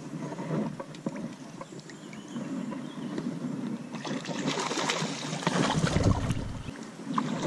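Hooked brook trout splashing and thrashing at the water's surface as it is reeled in close, the splashing getting louder and busier over the last few seconds.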